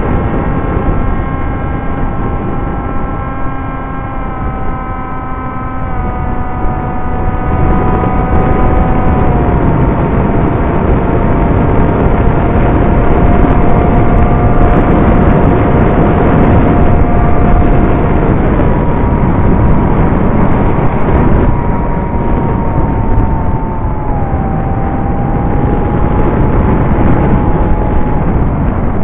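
Electric motor and propeller of an EPP foam FPV model plane whining over heavy wind rush on the onboard camera. The whine steps down in pitch a couple of times as the throttle is eased, drops out briefly about two-thirds of the way through, then comes back higher and dips once more.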